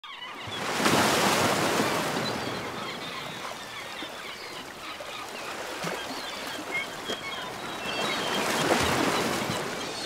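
Surf washing onto a beach, swelling about a second in and again near the end, with many small bird calls over it.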